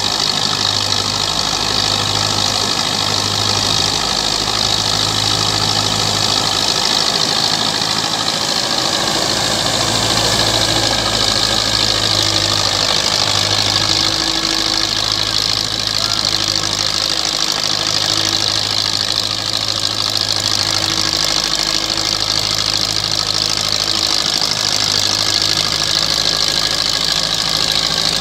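Belarus 510 tractor's diesel engine running steadily under heavy load, driving a thresher, with a loud, steady rushing hiss from the threshing machine over the engine.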